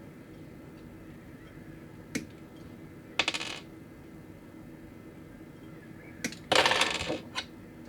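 Small hard plastic model-kit parts clicking and clattering as they are handled: a single click about two seconds in, a short rattle a second later, and a louder, longer clatter near the end.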